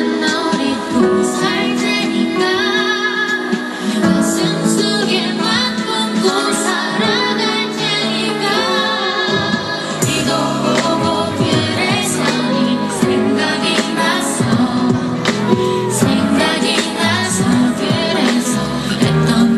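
A female vocalist sings a Korean pop song live over its backing track, a continuous loud mix of voice and accompaniment.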